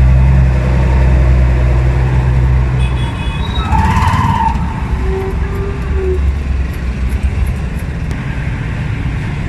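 Low, steady engine rumble of a nearby vehicle that drops away about three seconds in, leaving a rougher, lower traffic rumble. A brief higher pitched tone sounds about four seconds in.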